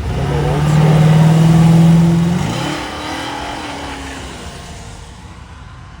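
A car engine accelerating past, its note climbing slowly and loud for about two seconds, then dropping in pitch and fading as the car drives away.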